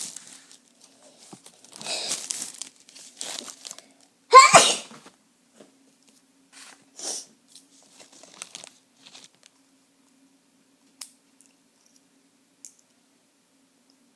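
Gum wrapper crinkling and tearing as a child works a piece of gum out of its packet. About four and a half seconds in comes one loud sneeze, then a few softer rustles.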